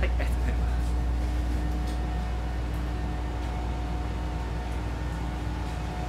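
Steady low hum of a railcar heard inside the passenger cabin, with faint steady tones above it and a few light clicks in the first second.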